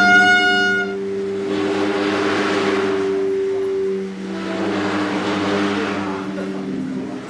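Several sustained horn-like tones drone together, stepping to new pitches about four seconds in and again near the end. A breathy hiss swells and fades twice over them. A higher horn tone cuts off about a second in.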